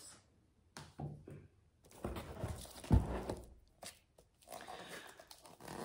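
Books being handled and set aside: rustling, with one dull thump about three seconds in and a few light knocks after it.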